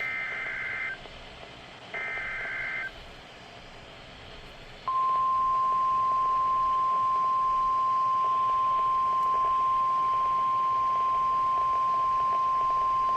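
NOAA Weather Radio alert signal: the last two of the three SAME digital header bursts, each a harsh warbling data screech about a second long, two seconds apart, then after a short pause the steady 1050 Hz warning alarm tone starting about five seconds in and held, announcing a Special Marine Warning.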